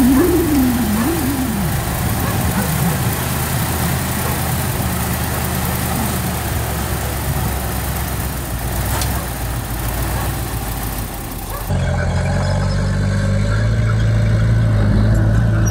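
Diesel engine of heavy construction equipment running steadily, with a brief wavering whine in the first second or two. About twelve seconds in the sound changes abruptly to a louder, steady low engine hum.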